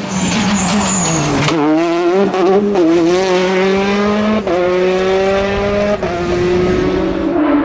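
Peugeot 208 rally car's engine pulling hard past, its pitch dipping and then climbing through gear changes, with a sharp crack at a shift about halfway through. A brief high tire squeal comes in the first second.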